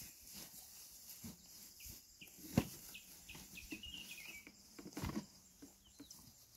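Small birds chirping in short high calls, mostly between about two and four and a half seconds in. Two sharp knocks cut across them, the louder about two and a half seconds in and another near five seconds.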